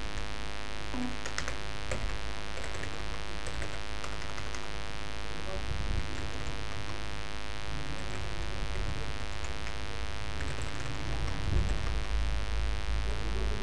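Steady electrical hum and buzz running throughout, with faint scattered clicks of a computer keyboard being typed on.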